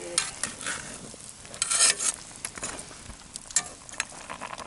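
Metal tongs scraping and clicking against a cast-iron camp oven (Dutch oven) as lamb shanks are turned in the gravy, over a faint sizzle from the pot on the coals. The loudest scrapes come a little under two seconds in and again at about three and a half seconds.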